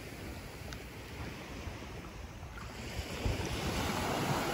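Small waves lapping and washing onto a sandy shore, getting a little louder about three seconds in, with wind rumbling on the microphone.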